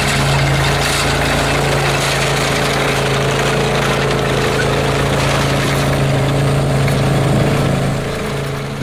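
Engine of a stand-on mini track loader (compact tracked skid steer) running steadily at a constant speed, a steady hum with a noisy clatter over it; it eases off near the end.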